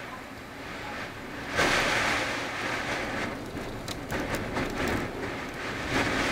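Blizzard wind blowing hard in gusts, with a stronger gust swelling up about a second and a half in, and a few faint clicks later on.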